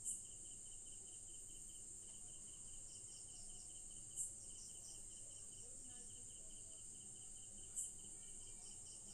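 Insects chirping: a steady high buzz with a faster, regular pulsing chirp beneath it. The buzz swells briefly three times, about every three and a half seconds.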